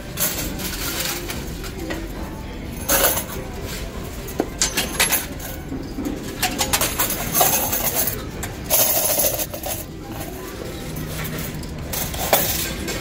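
Metal casino slot tokens clinking and clattering in several short bursts, handled and spilling in a machine's metal tray.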